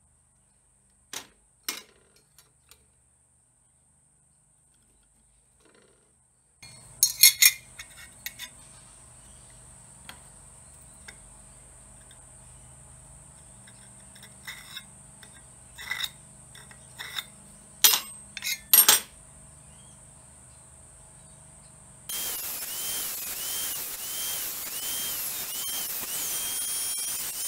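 Steel hand tools clinking and tapping on a steel saw blade, with a few sharp strikes, the two loudest close together. In the last five seconds an angle grinder cuts steel, its high whine wavering under load.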